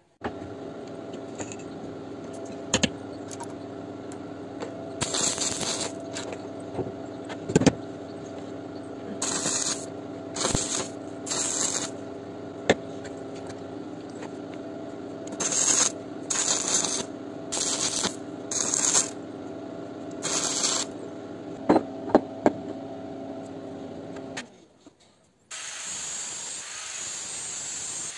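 A power tool runs steadily while a steel pipe is worked, with repeated short bursts of harsh cutting noise and a few sharp metal clinks. About three-quarters of the way through it stops, and after a moment of quiet an angle grinder spins up and runs freely with a high hiss.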